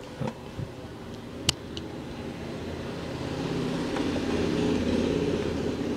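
A single sharp click about a second and a half in, then a low droning hum with steady engine-like tones that swells louder toward the end.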